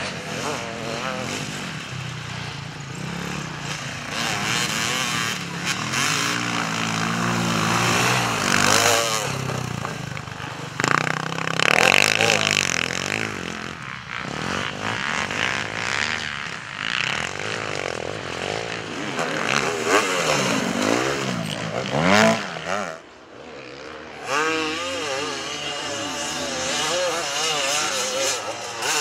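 Enduro motorcycle engines revving up and down as several bikes ride past one after another, the pitch rising and falling with each throttle change. The sound drops away briefly about three-quarters of the way through, then picks up again.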